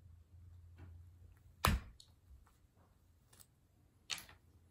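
Handling noises as a cloth snake bag is opened: one sharp snap about two seconds in and a short rustle near the end.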